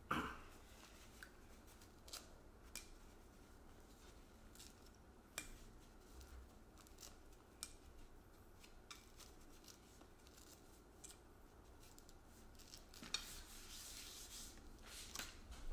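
Faint scattered crackles and small clicks of a mandarin orange's peel being torn away by fingers, with a longer rustle a little before the end. The mandarin is tight-skinned, its peel hard to get off.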